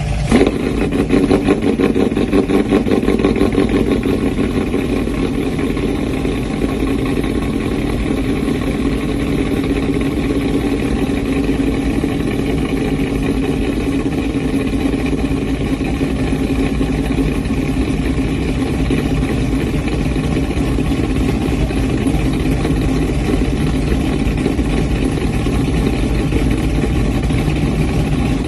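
A vehicle engine idling steadily, a little louder in the first few seconds.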